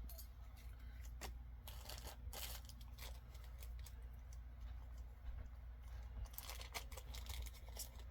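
Packaging being handled and torn open by hand: intermittent crinkling and tearing rustles, busiest about two seconds in and again near the end, over a steady low hum.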